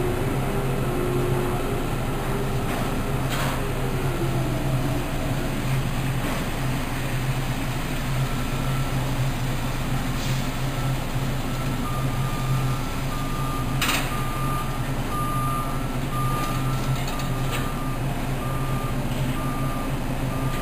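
Steady low machinery hum from a dockside container gantry crane working a container onto a truck chassis, with repeated short electronic warning beeps from about eight seconds in.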